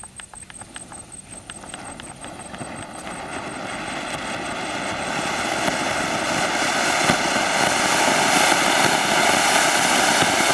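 Anar (flowerpot fountain firework) spraying sparks: a few crackling pops as it catches in the first few seconds, then a steady hiss that swells louder over several seconds and holds.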